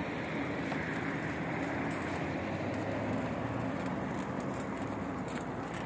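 Steady rushing noise of riding along on bicycles over a paved path, with a car driving past on the road alongside.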